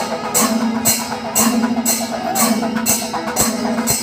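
Kerala temple percussion ensemble: hand cymbals clash evenly about twice a second over drumming, with a steady low tone held beneath.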